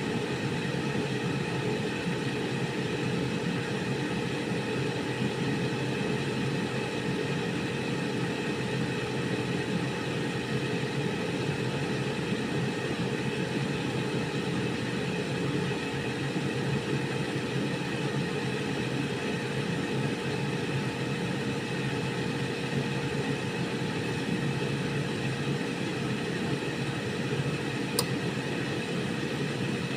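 Air fryer running: a steady fan whir with a constant hum. One sharp click comes near the end.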